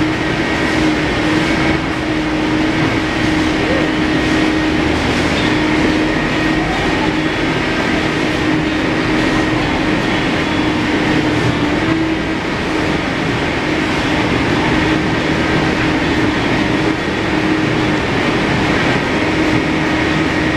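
Loud, steady mechanical rumble and hiss with a constant low hum.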